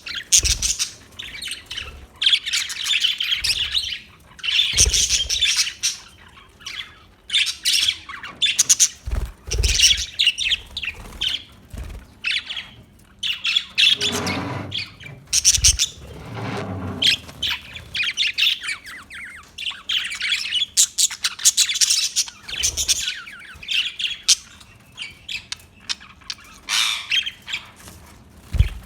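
Budgerigars chirping in quick, overlapping bursts, with two lower, longer calls about halfway through.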